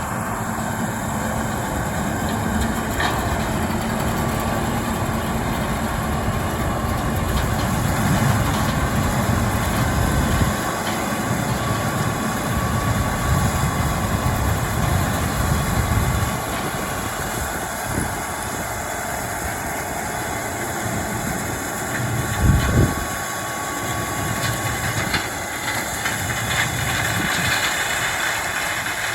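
Heavy farm harvest machinery running steadily, with a loud low engine rumble that eases back about ten seconds in and again near sixteen seconds. There is a single heavy knock a little past the twenty-second mark.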